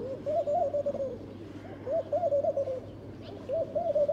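Dove cooing: three soft, multi-note coo phrases, each about a second long and repeated at an even pace.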